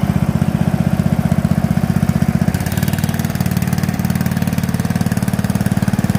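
Kawasaki 14 hp engine of a Rabbit RM82 ride-on mower running steadily with a fast, even firing pulse as the mower is driven along. A brighter hiss joins in about two and a half seconds in.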